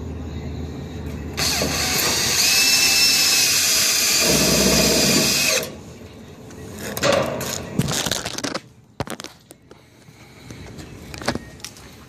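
Cordless drill running steadily for about four seconds, starting a second or so in, on the galvanized sheet-metal curb, followed by scattered knocks and rattles of the metal being handled.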